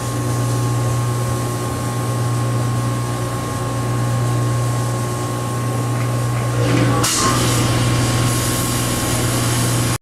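Air-abrasion unit and its blasting cabinet running: a steady hum under a constant hiss. About seven seconds in the hiss of the abrasive jet from the pen-sized nozzle grows louder and brighter as it cuts into the corrosion.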